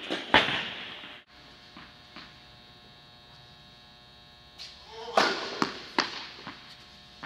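Tennis ball hits, racket on ball and ball on court, sharp cracks that ring out with an echo in an indoor tennis hall: one about a third of a second in, then a run of them from about five seconds on. Between them, a steady hum.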